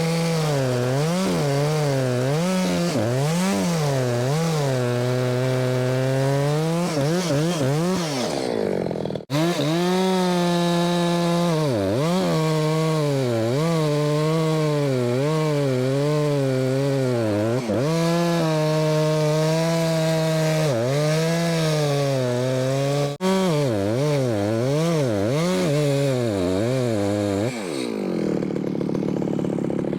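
Husqvarna two-stroke chainsaw cutting through an ash log at full throttle, its pitch repeatedly sagging under load in the cut and climbing back. Near the end the revs drop off.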